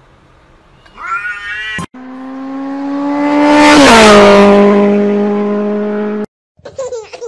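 A short cat meow about a second in. Then a passing vehicle: a steady pitched drone that swells as it approaches, drops in pitch as it goes by, and cuts off abruptly.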